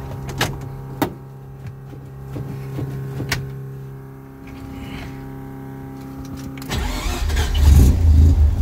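Datsun 510 cold start: a steady hum with a few sharp clicks, then about seven seconds in the engine fires and runs, much louder.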